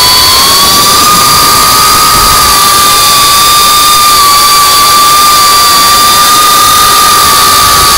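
Motors and propellers of a GEPRC CineLog35 3.5-inch FPV drone, whining at a nearly steady pitch during cruise, with a strong rushing hiss of prop wash and wind, heard from on board.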